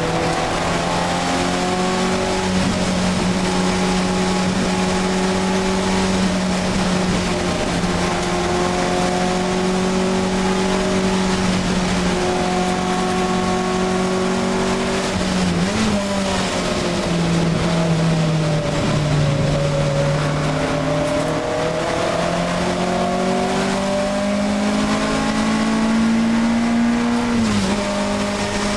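Alfa Romeo 1750 GTV race car's twin-cam four-cylinder engine running hard at high revs, heard from inside the cabin. The note holds one steady pitch for about the first half, wavers sharply and settles lower around the middle, then climbs slowly and drops suddenly near the end.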